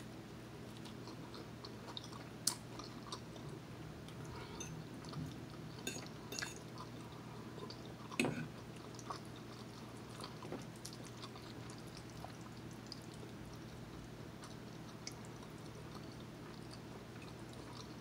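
A person chewing and eating garlic bread and fettuccine alfredo: soft mouth sounds, with a few short sharp clicks, the loudest about two and a half and eight seconds in, over a steady low hum.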